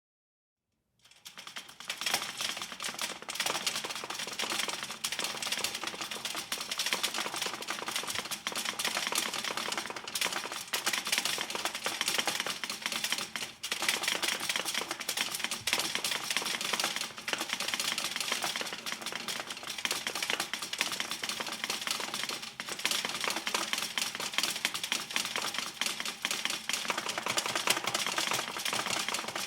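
Metal shaking and vibrating: a dense, continuous rattling clatter of rapid metallic taps, starting suddenly about a second in and going on at a steady level.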